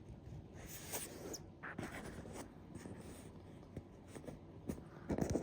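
Small clicks and rubbing from handling a diecast model airliner in the hands, with a louder scuffle near the end.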